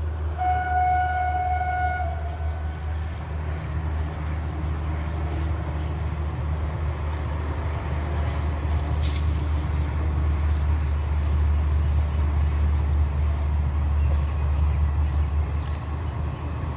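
Passenger train's locomotive horn sounds once for about a second and a half, then the train gives a steady low rumble as it runs past.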